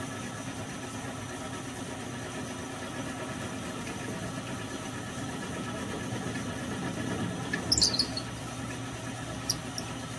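Small milling machine running with an end mill cutting an aluminium crankcase half: a steady motor and spindle hum. About eight seconds in comes a brief high-pitched squeal, and a sharp click follows a moment later.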